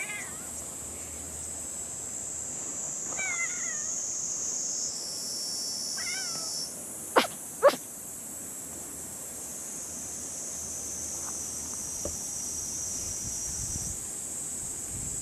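Tuxedo cat meowing: three short meows, near the start, about three seconds in and about six seconds in. Two sharp clicks come close together about seven seconds in, over a steady high insect drone.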